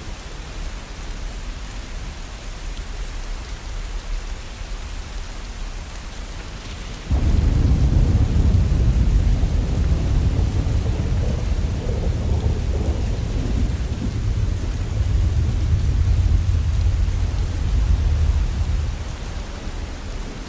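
Steady rain falling, with a long, low rumble of thunder that breaks in suddenly about a third of the way in and dies away near the end.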